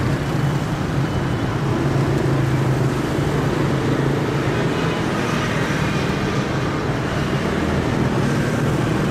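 Roadside outdoor ambience: steady traffic noise with a continuous low engine hum, starting abruptly.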